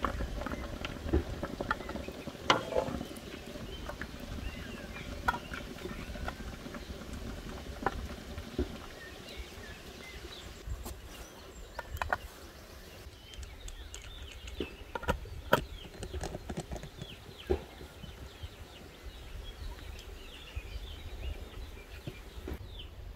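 Scattered knocks and clinks of large glass preserving jars being lifted from a pot of hot water and set down on a table, with a hand-held canning-lid seaming key worked on a jar near the end. Underneath is a low steady rumble, and birds chirp in the background.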